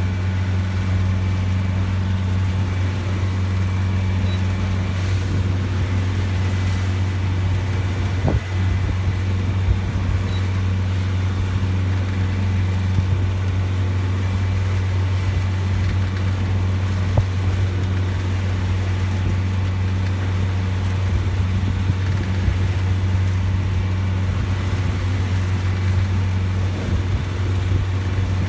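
Strong wind in a windstorm, rumbling steadily and loudly over the microphone, with a couple of brief knocks.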